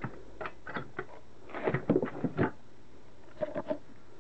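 Wooden timber block knocking and thudding against a steel bench vise as it is turned around and set between the jaws, in a series of separate knocks with a louder cluster about two seconds in.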